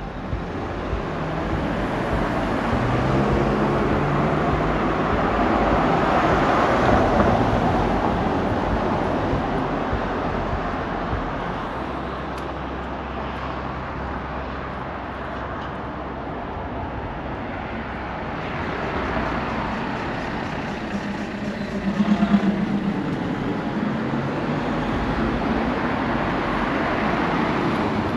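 Road traffic: cars going by one after another, each swelling up and fading away, the loudest passing about seven seconds in.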